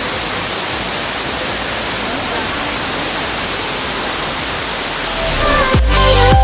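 Steady rushing of a tall indoor waterfall pouring down into a pool. About five and a half seconds in, electronic music with a deep bass comes in over it.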